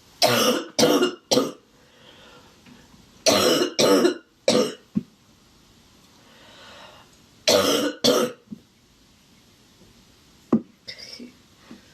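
A woman's sick, barking cough in three fits: three harsh coughs at the start, three more about three seconds later, then two more about 7.5 s in. A short click follows near the end. She puts the cough down to dust in the air.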